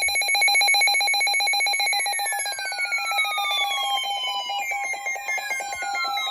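Electronic emergency alert tone sounding for a tornado warning: a steady, rapidly pulsing alarm tone, joined from about two seconds in by tones that slide down in pitch, one after another.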